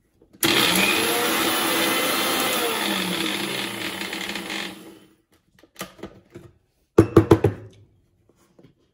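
Electric mixer-grinder dry-grinding whole spices to a fine powder in its steel jar. It starts suddenly, runs for about four seconds, then is switched off and winds down. A few clattering knocks follow as the jar is handled.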